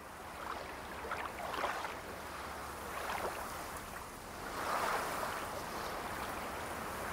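Soft rushing noise that fades in from silence, then swells and ebbs about three times, with a faint shimmer on the swells.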